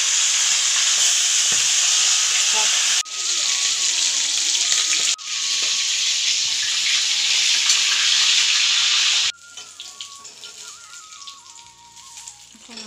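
Fish heads frying in hot oil in a karahi, a loud steady sizzle with a spatula turning the pieces. The sizzle cuts off abruptly twice, then drops to a much quieter level about nine seconds in.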